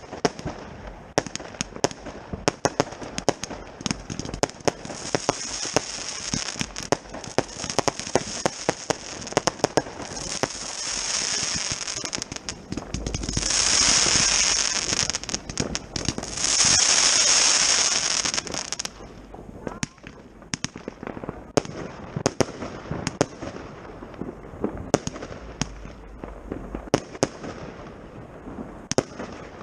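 Consumer firework battery (cake), the Xplode Endless Shooter, firing a rapid run of shots with a loud high hissing that builds to its strongest from about 13 to 18 seconds in and cuts off suddenly. Sharp bangs and crackling from other fireworks go on throughout.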